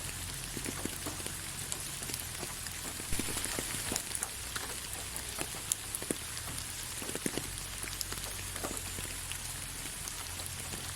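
Rain falling on leaves: a steady hiss dotted with many separate drop ticks, a few of them louder.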